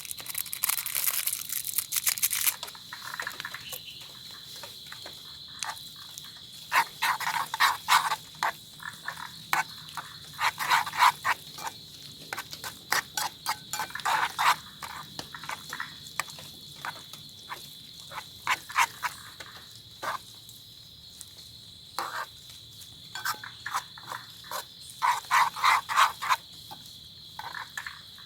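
Frogs calling in bouts of rapid croaks every few seconds, over a steady high-pitched insect trill.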